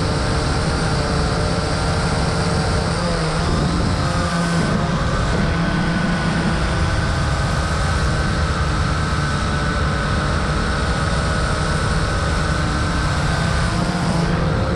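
Vivitar 360 Sky Eye View drone's motors and propellers in flight, heard close up through the GoPro mounted beneath it: a steady buzzing whine whose pitch drifts a little now and then.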